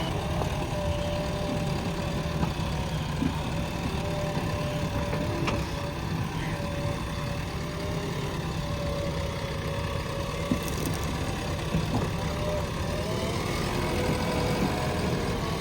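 Diesel engine of a JCB 3DX backhoe loader running steadily, with a thin tone over the engine that wavers slowly up and down.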